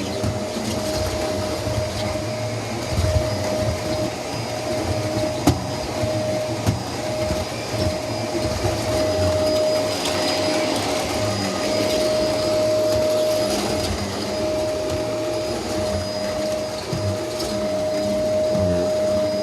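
Vacuum cleaner running over a rug: a steady motor whine over rushing airflow, with a few sharp clicks along the way.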